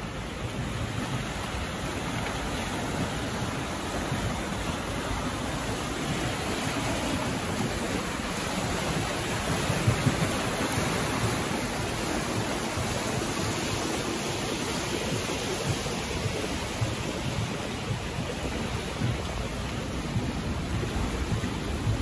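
Steady rushing of fast-flowing, turbulent channel water churning past a stone quay wall, with breaking white crests.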